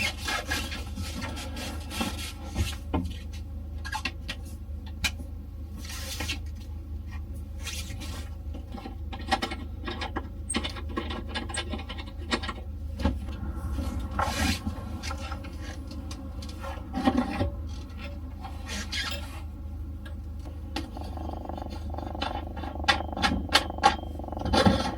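Campervan dinette table being taken down and the seating rearranged into a bed: repeated knocks, clatters and scraping of panels and cushions, over a steady low hum.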